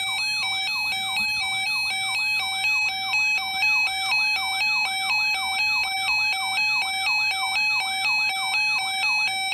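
Weather alert radio's electronic alarm going off: a warbling, siren-like tone that sweeps and repeats about two and a half times a second, signalling an incoming tornado watch alert.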